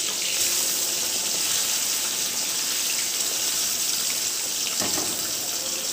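Fish steaks sizzling as they fry in hot oil in a wok, a steady, even hiss.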